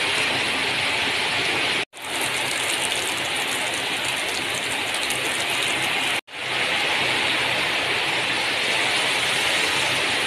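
Pieces of boiled native chicken sizzling and crackling steadily in hot oil in a pan as they fry. The sizzle drops out briefly twice, about two and six seconds in.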